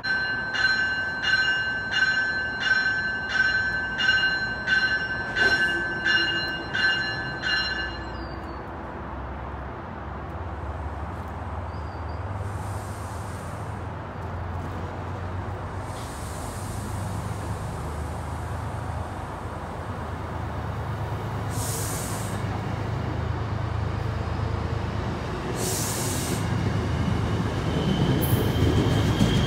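MBTA commuter train's bell ringing about eleven times in a steady rhythm for the first eight seconds. Then the train pulls out, and the rumble of its bilevel coaches rolling past grows louder, with a few short hisses and a faint wheel squeal near the end.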